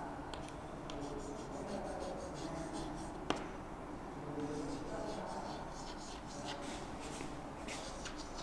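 Quiet chalk writing on a blackboard: short scratchy strokes and light taps as words are chalked out, with one sharper tap of the chalk about three seconds in.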